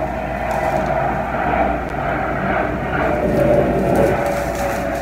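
Airplane flying overhead, a steady drone that swells and eases slightly.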